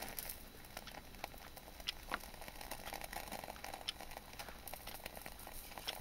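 Faint scattered crackles and ticks over a low hiss as a match flame lights a hexamine fuel block in a Swiss Army stove's burner.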